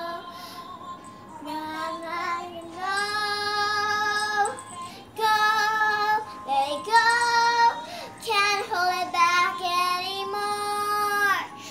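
Young girl singing a ballad in a high voice, with several long held notes that swell and break off between phrases.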